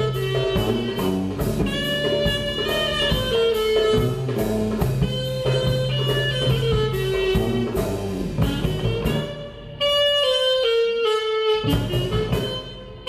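Live band of electric bass, drum kit and clarinet playing a jazzy instrumental, the clarinet carrying the melody. About ten seconds in the drums and bass drop away, leaving the clarinet playing mostly alone.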